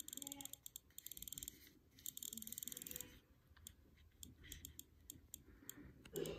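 Second-generation iPod Nano's click wheel clicking as the album list is scrolled: two quick runs of rapid, even ticks in the first three seconds, then a few single clicks.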